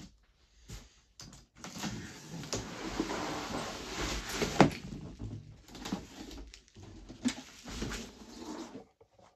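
A large cardboard box being opened and tipped up, and a plastic-wrapped car grille pulled out of it: cardboard scraping and plastic wrap rustling, with several sharp knocks, the loudest about halfway through.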